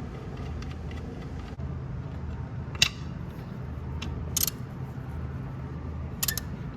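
Three short, sharp metallic clicks over a steady low hum: the oil drain bolt of a Kawasaki ZX6R being threaded back in and tightened with a 17 mm socket ratchet.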